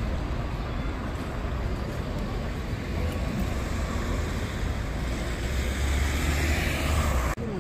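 Steady roar of city street traffic with wind rumbling on the microphone. It grows louder about five seconds in, then cuts off abruptly near the end.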